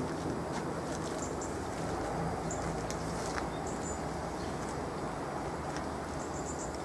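Steady outdoor background noise with a few short, faint, high bird chirps scattered through it.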